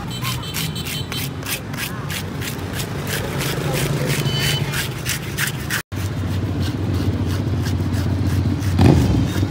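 A blade scraping scales off a grouper's skin in quick repeated strokes, about four a second. After a cut, steady road traffic, with a motorbike passing close near the end as the loudest sound.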